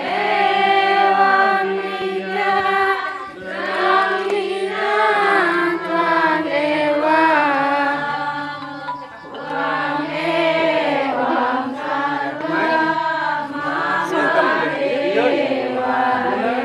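Several voices singing a slow, melodic chant together, the lines gliding and sustained, with no break in the singing.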